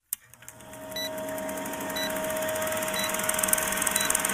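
Film countdown leader sound effect: a short beep about once a second over the steady whirring and rapid clatter of an old film projector, fading in during the first second.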